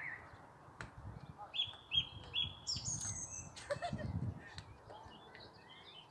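Small birds singing and chirping: a run of three short repeated notes about one and a half seconds in, then higher notes and scattered chirps toward the end, over soft low bumps.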